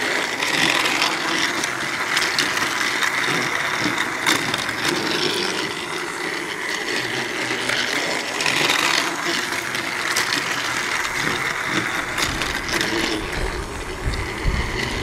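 Battery-powered Trackmaster James toy engine running along plastic track: its small motor and gearbox whir steadily, with scattered light clicks.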